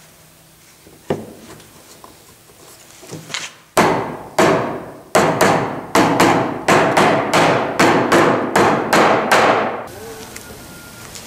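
Mallet blows on a pine stool's leg assembly, driving its tongue-and-groove joints down into the round seat: one knock about a second in, then about fourteen loud, sharp strikes on wood that come faster, two to three a second, before stopping abruptly near the end.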